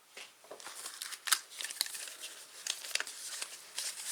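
Crinkling and rustling of plastic wrapping and paper as a sticker album and sticker packs are handled, a string of short, sharp crackles.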